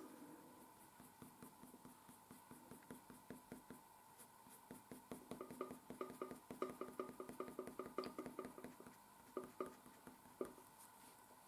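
Coloured pencil shading on paper in short back-and-forth strokes, faint. The scratching runs in a quick rhythm of about five strokes a second through the middle, then a few single strokes near the end.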